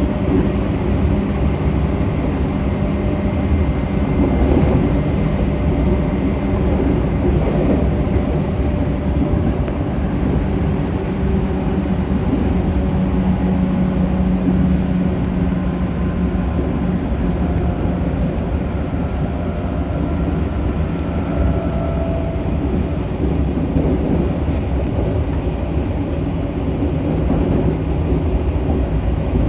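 Running noise of a JR 211 series electric multiple unit motor car (KuMoHa 211) at speed, heard from inside the car: a steady rumble of wheels on rail and motors, with faint tones that drift as the train slows from about 90 to about 80 km/h.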